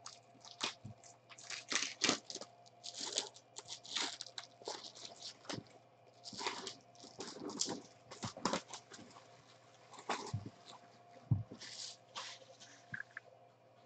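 Clear plastic wrapping and a plastic card holder crinkling and rustling in irregular bursts as a stack of trading cards is handled, with a light knock near the end.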